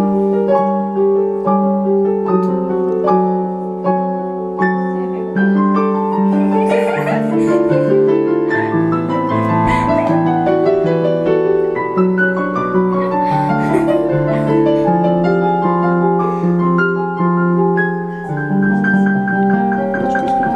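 A piano piece played with both hands on a portable electronic keyboard set to a piano sound: a steady run of melody notes over held low notes.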